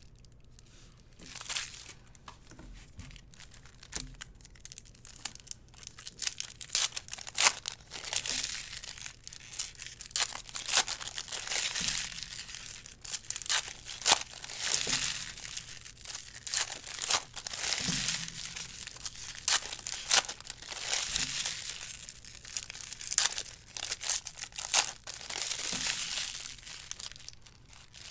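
Foil trading-card packs crinkling and tearing as they are handled and ripped open, with irregular sharp crackles throughout.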